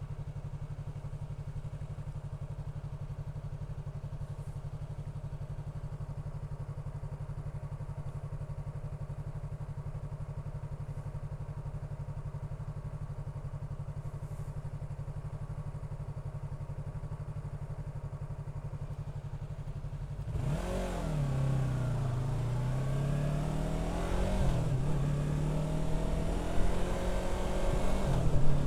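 Yamaha R3's parallel-twin engine idling steadily for about twenty seconds, then pulling away: the engine note climbs and drops back several times as the bike accelerates through the gears.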